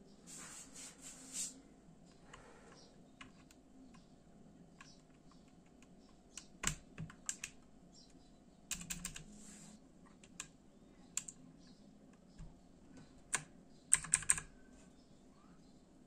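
Sharp plastic clicks and snaps of an Outemu Blue mechanical keyboard switch being handled and seated into its socket on the keyboard. The clicks come singly and in short clusters, the loudest cluster near the end.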